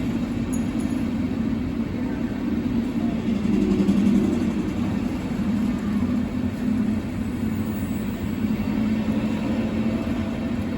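A train running past with a steady low rumble.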